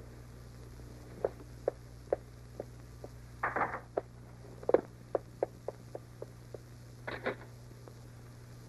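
Light footsteps, a short sharp tap about two to three times a second, over a faint steady hum. A brief louder scuffing noise comes in the middle and again near the end.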